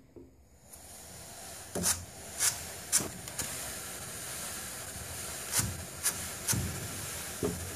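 Fancy Kitty Kitten drum carder turning with angora and wool on its carding cloth, a wire burnishing brush held against the drum: a steady rustling hiss of teeth through fibre. A handful of sharp clicks break it along the way.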